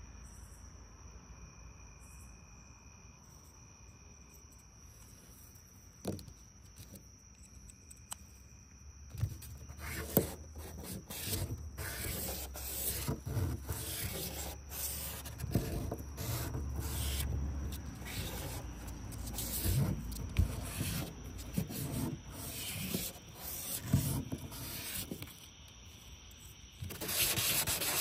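A metal part of a VW TDI vacuum pump being hand-sanded flat on sandpaper to remove scratches: irregular back-and-forth scraping strokes start about nine seconds in and are loudest near the end.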